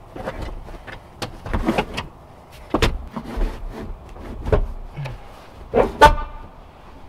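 A car seat being lowered and shifted into place on its floor tracks, its frame knocking and scraping against the floor and rails in a string of irregular clunks. Near the end comes the loudest knock, with a brief metallic ring.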